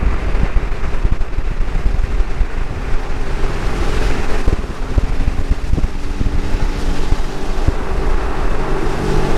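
Sea-Doo Fish Pro Trophy personal watercraft under way, its engine running beneath heavy wind buffeting on the microphone. The engine hum comes through more clearly from about halfway in, its pitch shifting.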